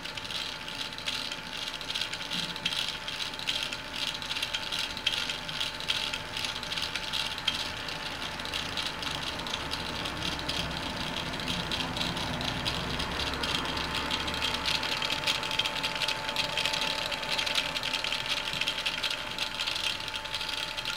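The two small stepper motors of a mini laser drawing projector, stepping the mirrors as they trace a moving pattern, give a fast, continuous rattling chatter over a thin steady whine.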